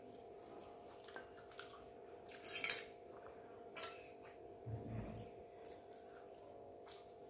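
Cutlery clinking and scraping against a dish in short, irregular strokes, with a low thump about five seconds in.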